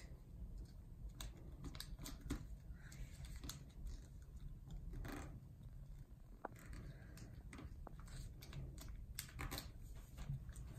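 Faint rustling and creasing of a small sheet of origami paper being folded by hand, with scattered light ticks and taps as fingers press the folds against the tabletop.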